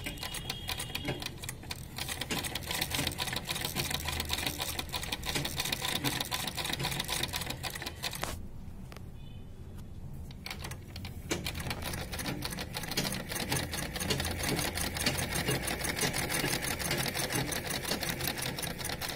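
Domestic straight-stitch sewing machine, set to its longest stitch, stitching a row through cotton fabric with fast, even needle ticks. It stops for about three seconds partway through, then stitches again.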